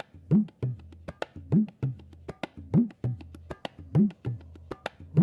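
Rhythmic percussion beat: sharp, wood-block-like clicks about every 0.4 s, with a low drum note that bends up and back down about every 1.2 s.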